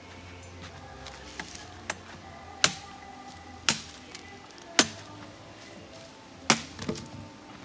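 Firewood sticks being chopped: four sharp strikes about a second apart, with a few lighter knocks between.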